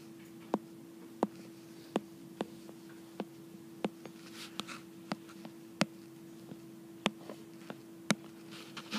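Stylus tapping and scratching on a tablet screen while drawing, with a sharp click at each pen-down, about one and a half a second at uneven spacing. A steady hum runs underneath.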